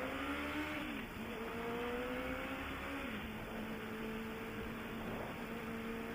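Motorcycle engine pulling away, heard through a Bluetooth helmet-headset microphone. Its pitch climbs and drops at gear changes about one second in and about three seconds in, then holds steady over a rush of wind noise.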